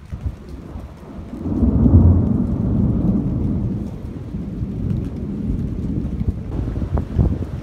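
Thunder rumbling during a night thunderstorm: a low roll that swells about a second and a half in and dies away slowly over several seconds.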